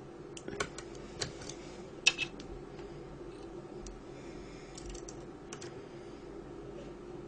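Half-diamond lock pick and tension wrench working the pins of a dimple-style lock cylinder: irregular small clicks and taps as the exterior pins are lifted, the loudest about two seconds in. A faint steady hum runs underneath.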